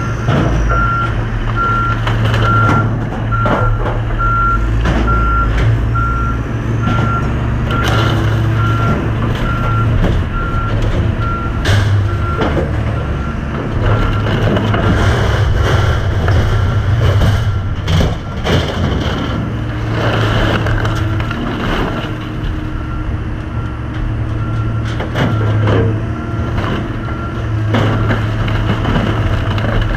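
A heavy wheel loader's reversing alarm beeping in a steady train, plain for the first twelve seconds or so and fainter after, over the running diesel engines of the yard machinery. Scattered clanks and bangs of scrap metal being handled.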